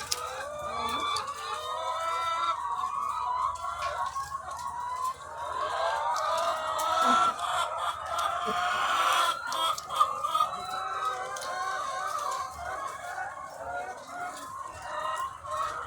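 A large flock of egg-laying hens clucking and calling together in a dense, continuous chorus of overlapping calls.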